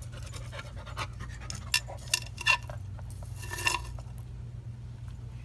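Labrador retriever chewing hard on a fibrous flowerpot wick: a few sharp clicks and clinks, with a short cluster of them a little after the middle, over a steady low hum.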